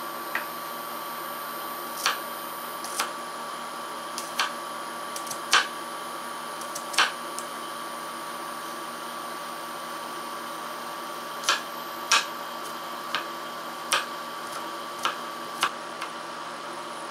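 Kitchen knife chopping garlic cloves on a wooden cutting board: about a dozen separate sharp knocks, spaced irregularly. Under them runs a steady hum with a thin high whine from the electric hob heating the pan.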